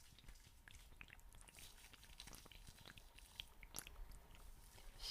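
Faint, irregular close-miked ASMR clicks and crackles, scattered through the pause in whispering.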